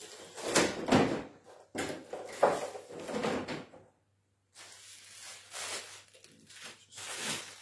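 Tripod parts being handled and fitted together: a string of knocks, clacks and sliding scrapes, loudest in the first three seconds, then softer sliding noises.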